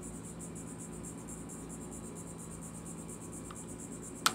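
Insects chirping in a steady, rapidly pulsing high trill, with a single sharp click near the end.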